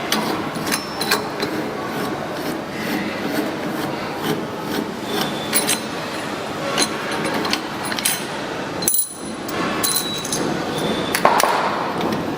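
Hook spanner undoing a fitting on a bakpao-making machine: many sharp metal clicks and clinks over scraping and rubbing of the tool and parts, with a brief lull about nine seconds in.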